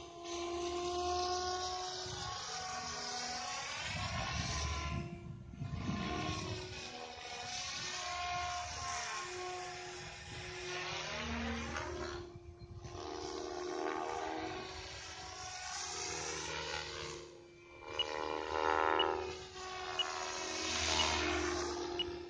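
SAB Goblin 500 electric RC helicopter in flight: the whine of its Quantum brushless motor and drivetrain with the swish of the rotor blades. The pitch rises and falls again and again as it manoeuvres and passes, and the sound drops away briefly a few times.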